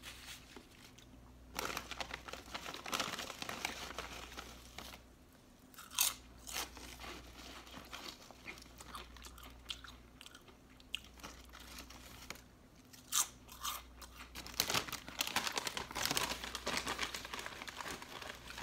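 Close-miked chewing and crunching of a barbecue pulled-pork sandwich with coleslaw, with wet mouth clicks and a few louder crunches about six and thirteen seconds in.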